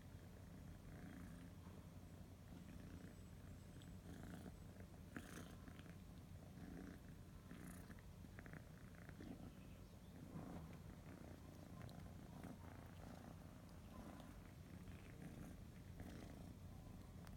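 Scottish Fold kitten purring, a faint, steady, low rumble, with light scattered clicks and rustles as it bites and paws a cord.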